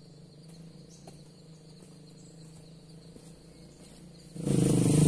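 A motorcycle engine running, heard faintly as a low steady hum at first. A little over four seconds in it suddenly becomes much louder.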